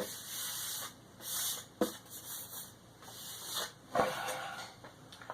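Rubbing and scraping of laptop hardware being handled, as the MacBook Pro's bottom cover is fitted back on, with two sharp knocks, about two seconds in and again about four seconds in, the second the loudest.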